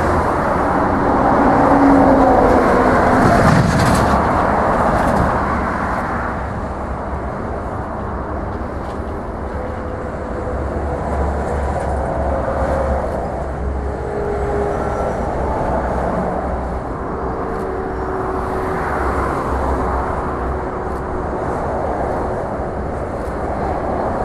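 Steady rumbling noise of a vehicle in motion, louder for the first few seconds and then settling to an even level, with faint held tones coming and going.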